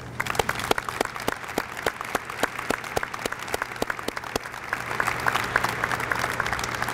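Audience applauding, the separate claps of a modest crowd easy to pick out, over a steady low hum.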